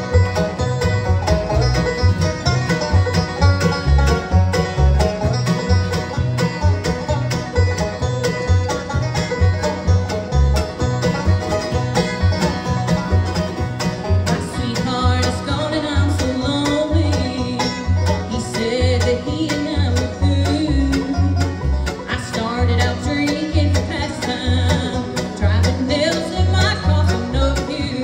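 Live bluegrass band playing an up-tempo number, with picked banjo and guitar over a steady low beat. A further wavering melody line joins about halfway through.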